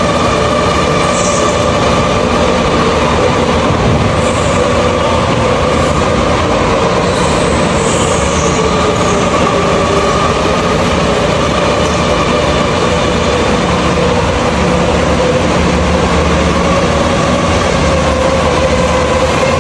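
Several go-karts lapping an indoor track: a loud, steady motor whine of a couple of high tones over running noise, with a few brief high squeals, like tyres, along the way.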